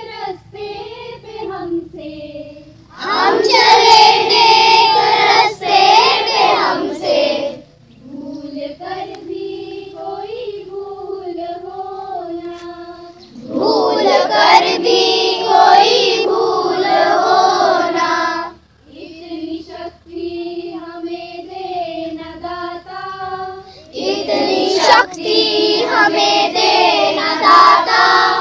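A group of children singing a song, with quieter passages alternating with louder, fuller ones roughly every ten seconds.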